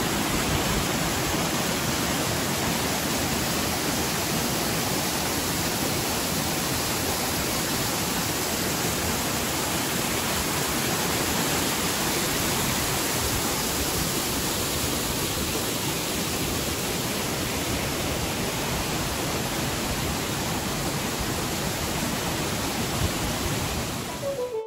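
Dolgoch Falls waterfall: falling water making a steady, dense rush that holds even throughout.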